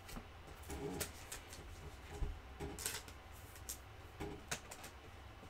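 Trading cards being handled and flipped through by hand: faint, irregular soft clicks and brushing strokes of card stock sliding over card.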